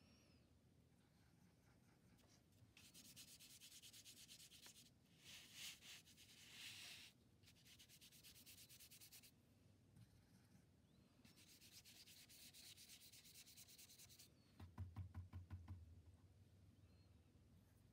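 Paintbrush scrubbing paint onto paper in quick back-and-forth strokes, soft and close, in several runs of a few seconds each with short pauses between. Near the end comes a shorter run of quicker, duller taps.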